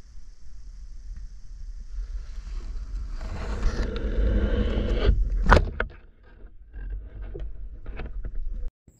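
A single sharp crack from a speargun being fired, about halfway through, preceded by a swelling rush of noise over a low rumble.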